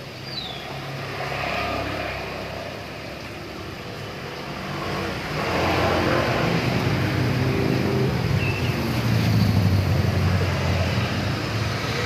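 A motor vehicle's engine running close by, louder from about halfway through and staying loud. Two short, faint high chirps, one just after the start and one later.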